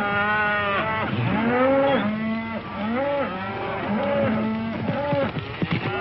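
A herd of cattle lowing: several cows mooing one after another and overlapping, each call rising and then falling in pitch.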